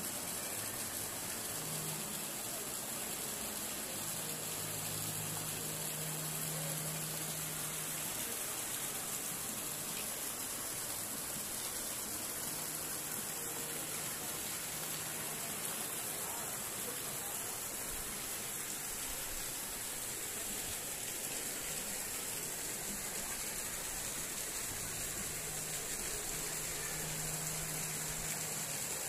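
Steady rushing hiss with a faint low hum that comes and goes.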